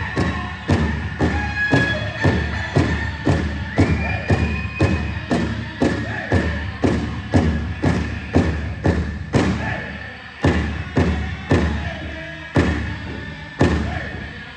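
Powwow big drum struck by a drum group in a steady beat of about two strokes a second, with singers' high voices carrying over it. About ten seconds in, the strokes space out to about one a second.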